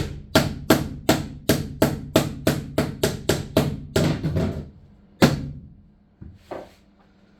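Hammer striking metal in a quick even run, about three blows a second, each ringing briefly; after a short pause comes one more hard blow and then two lighter knocks.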